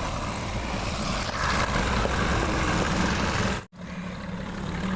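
An engine running steadily with a dense, noisy rumble. It cuts off abruptly about three and a half seconds in, then resumes a little quieter.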